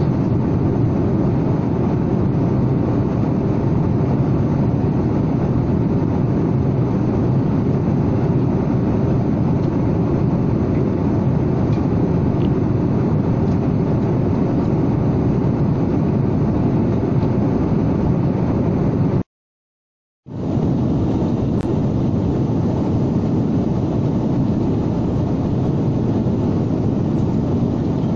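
Steady cabin noise inside an Airbus A330-300 airliner in flight: an even, low rush of engine and airflow noise. It drops out completely for about a second roughly two-thirds of the way through, then resumes unchanged.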